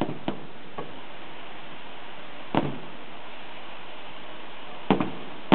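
Aerial fireworks shells bursting: a string of sharp booms, two small ones near the start, a louder one about halfway and a close pair near the end, each with a short echoing tail, over a steady hiss.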